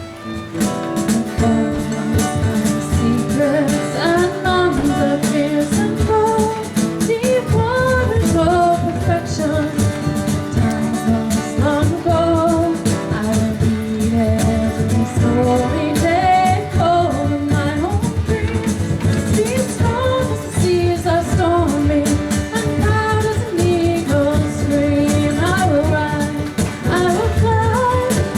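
Live music with singing: a voice sings a melody over accompanying instruments.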